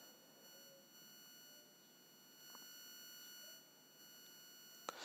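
Near silence: a faint, steady, high-pitched electronic tone runs under the recording's noise floor, with a small click near the end.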